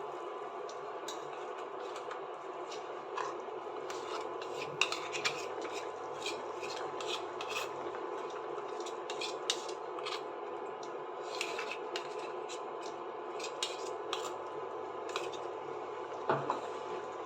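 A spatula scraping and clicking against a cooking pan as boiled potatoes are stirred with poppy-seed paste, over a steady background hiss.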